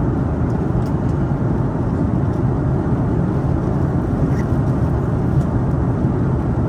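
Steady in-flight cabin rumble of an Airbus A330-200: jet engine and airflow noise heard from inside the cabin, deep and even with no change.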